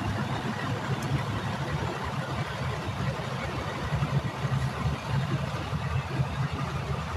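A vehicle engine idling steadily: a continuous low rumble.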